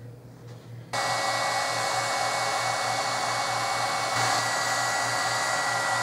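Electric heat gun switched on about a second in, its fan blowing with a steady whir and a thin whine, used to shrink heat-shrink tubing over a crimped copper cable lug.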